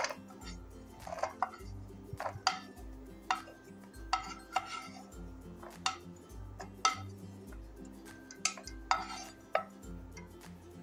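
Slotted spatula scraping and tapping a nonstick frying pan while roasted cashews are tipped into a steel bowl: a run of short, irregular clinks and scrapes, about one or two a second. Quiet background music with a steady beat plays underneath.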